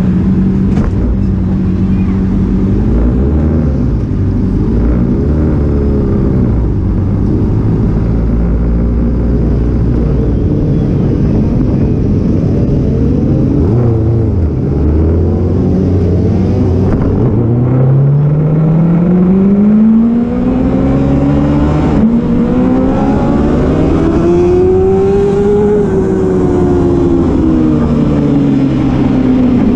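Race motorcycle engine under throttle, its note holding, dipping, then climbing in long rising sweeps as it accelerates and falling back near the end.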